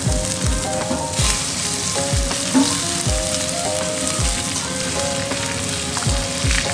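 Steak sizzling in butter in a frying pan on a gas stove. Background music with a deep, regular bass-drum beat and a melody plays over the sizzle.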